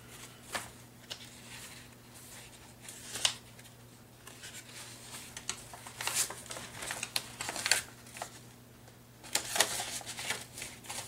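Sheets of paper and cardstock being shuffled, slid across each other and laid down by hand, rustling in irregular spells, loudest around the middle and near the end. A faint steady low hum runs underneath.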